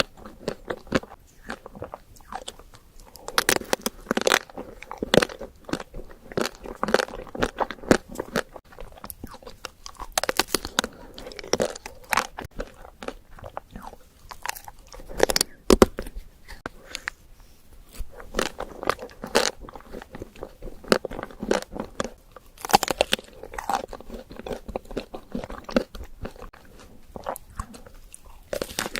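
Close-miked mouth sounds of a person biting and chewing soft, sticky sweets (chocolate doughnut and mochi), with wet smacking clicks in runs broken by short pauses.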